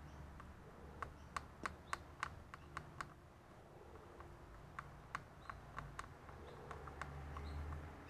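Faint, light clicking at a computer, as of keys or mouse buttons: a quick run of clicks about a second in, then a second shorter run past the middle, over a low steady hum.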